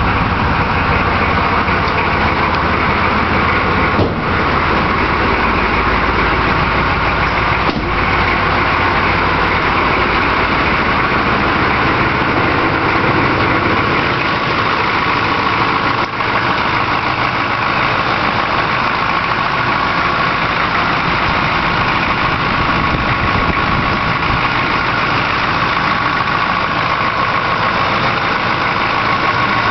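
Oldsmobile 350 (5.7-litre) diesel V8 idling steadily just after a cold start on glow plugs. It is heard first from inside the car, then close up in the open engine bay.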